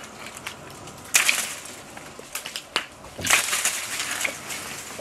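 A long wooden pole beating and shaking the leafy branches of a walnut tree to knock the nuts down: bursts of thrashing leaves, one about a second in and a stronger one just after three seconds, with a few sharp clicks between them.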